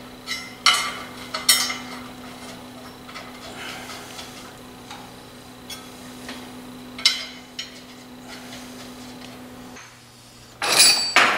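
Scattered metal clinks of a wrench and bolts against a steel engine adapter plate being test-fitted to a diesel engine's flywheel housing, over a steady low hum. A louder metallic clatter comes near the end.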